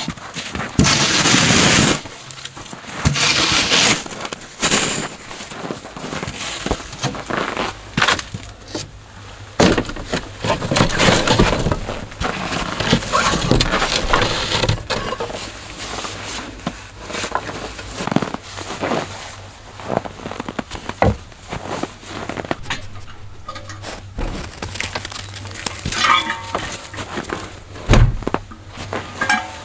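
A wide plywood board scraping and pushing snow in a few loud strokes, followed by a long run of knocks, clatter and scuffs as things are handled under a log cabin's porch roof.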